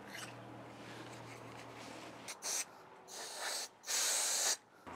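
Short hissing bursts from an aerosol spray can, three in a row starting a little over two seconds in, the last the longest and loudest.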